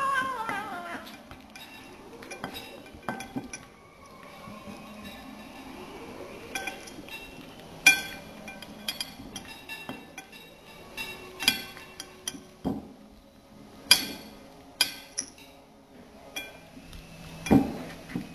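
Burmese kitten eating chicken from a dish, with scattered sharp clinks against the dish. A short falling cry comes right at the start.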